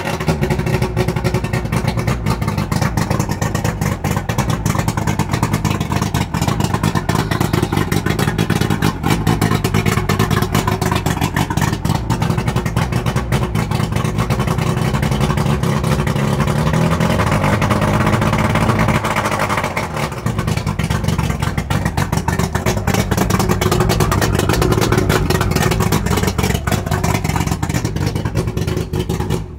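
Johnson V4 two-stroke outboard motor running steadily just after a choked cold start, its first start of the season. Its pitch swells up and back down about two-thirds of the way in, and the sound cuts off abruptly at the very end.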